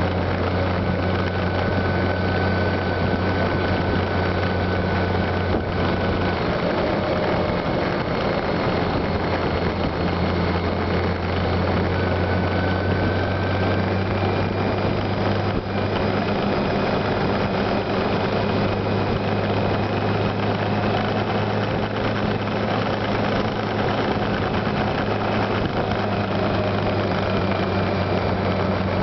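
Honda Gold Wing touring motorcycle running steadily at cruising speed, its engine a constant low hum under wind and road noise rushing past the microphone.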